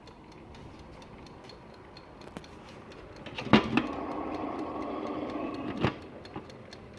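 Faint, regular ticking, then a sharp click about three and a half seconds in switches on a steady mechanical hum with a few held tones, which stops with another click a little over two seconds later.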